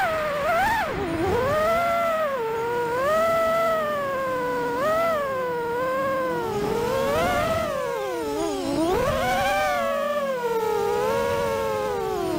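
Brushless motors and 5-inch props of a freestyle FPV quadcopter whining in flight, the pitch sliding up and down continuously with throttle. It drops deeply about a second in and again a little past the middle.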